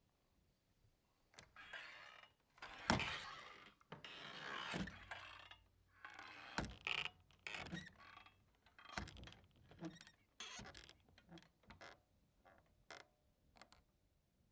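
Swinging saloon doors creaking open and shut, with heavy knocks as they swing through. They then settle with a run of smaller, quieter clacks that die away.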